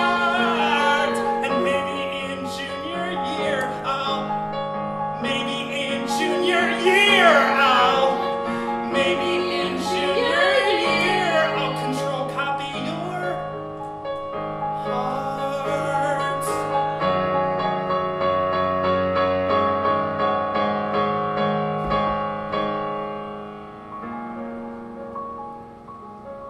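Yamaha electronic keyboard playing sustained chords under a singing voice with sliding, wordless runs; the singing stops a little past halfway and the keyboard carries on alone, getting softer near the end.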